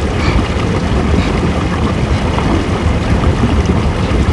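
Small boat under way on open water, its motor running under heavy wind rumble on the microphone.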